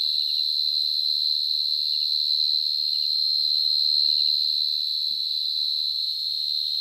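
A dế cơm (short-tailed cricket, Brachytrupes portentosus) singing: one loud, unbroken, high trill that holds a steady pitch.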